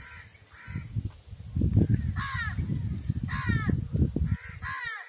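Water sloshing and splashing in a plastic tub as a pigeon is dunked and rubbed under the water by hand; the splashing stops shortly before the end. Over it a bird gives three harsh calls, about two, three and a half, and nearly five seconds in.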